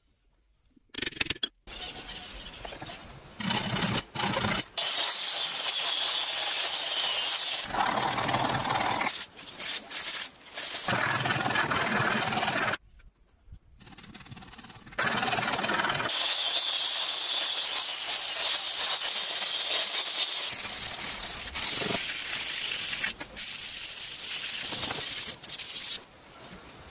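Abrasive sanding of a wooden knife handle: a loud, even rasping hiss in long continuous stretches of several seconds that start and stop abruptly.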